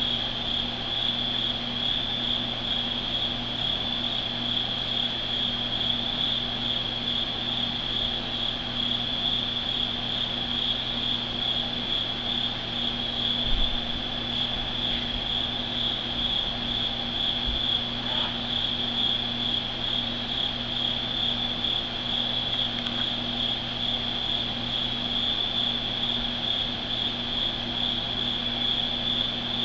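Night-time insect chorus, a steady high-pitched trill that pulses slightly and never lets up, over a steady low hum.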